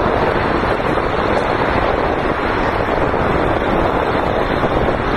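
Wind blowing across the microphone, a steady rushing noise with no breaks.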